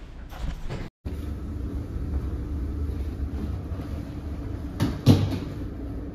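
A steady low rumble with a few light knocks, and one loud knock about five seconds in.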